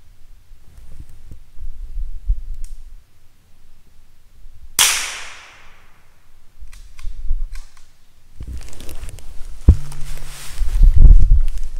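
A single gunshot about five seconds in, a sharp crack with a trailing echo that fades over about a second. From about three seconds later, low rumbling noise, the loudest sound here, with a sharp click in it.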